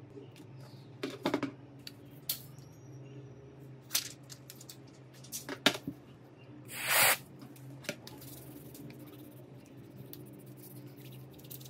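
Small handling sounds of phone repair work: a scatter of sharp clicks and taps, and one short hiss about seven seconds in, over a steady low hum.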